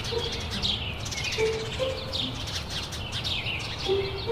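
Songbirds chirping: a dense chorus of quick, high, downward-sliding chirps, with a few short, steady, lower notes underneath.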